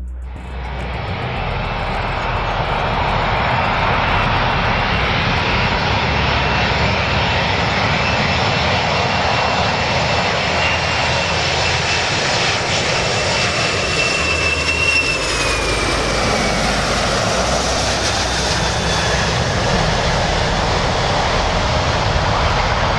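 Boeing 747-400 jet engines on landing approach: a steady jet roar that builds over the first few seconds, with a high engine whine that slides down in pitch partway through.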